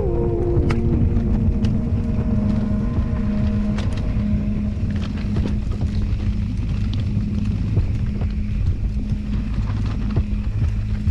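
Electric mountain bike riding over a stony dirt track: the motor's steady whine drops in pitch in a few steps about a second in and then holds, over tyre and wind rumble, with occasional sharp clicks of stones and bike parts.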